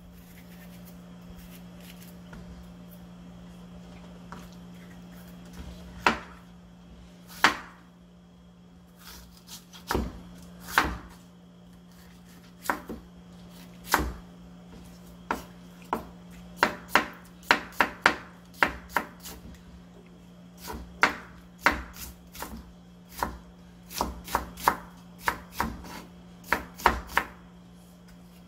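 Chef's knife cutting an onion on a wooden cutting board: sharp knocks of the blade on the board, a few spaced strokes at first, then quicker, irregular chopping from about halfway through.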